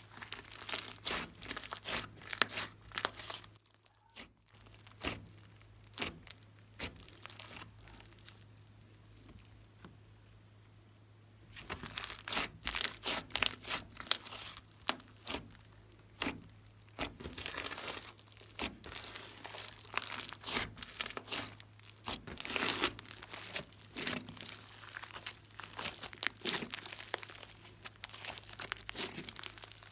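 Hands kneading and stretching a thick slime, giving runs of sticky crackles and clicks; the crackling thins out for a few seconds about a third of the way in, then comes back denser. A faint steady low hum lies underneath.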